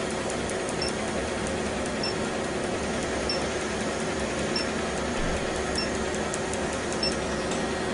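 Laser tattoo-removal machine and its cooling air running with a steady rushing hiss, while a short high beep sounds about every second and a quarter and faint sharp clicks come in between, as the laser pulses over the skin.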